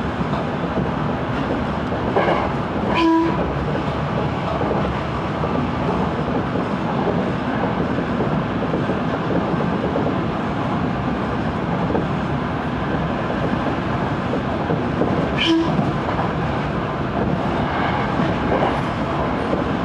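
Seibu Railway electric commuter train running at speed, heard from just behind the driver's cab: steady wheel and motor noise with the clack of rail joints. Two short horn toots sound, about three seconds in and again near fifteen seconds.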